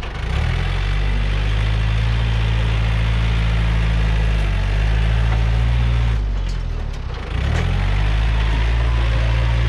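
Yanmar EF514T tractor's 51-horsepower diesel engine running steadily while working soil. Its speed dips briefly and picks back up near the start and again about seven seconds in.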